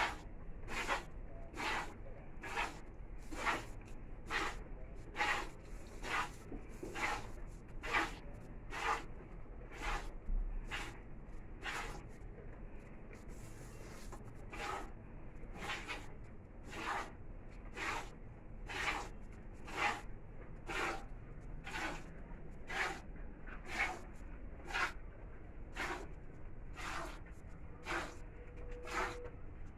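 Hand-milking a cow: squirts of milk hiss into a plastic bucket in a steady rhythm of about one stroke a second.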